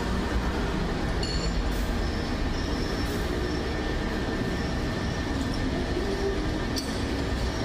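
Metal lathe running steadily, with a faint high whine above the machine noise.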